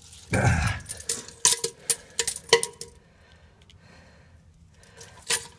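Loose coins clinking as they are handled, a quick run of sharp clinks over the first three seconds and one more near the end.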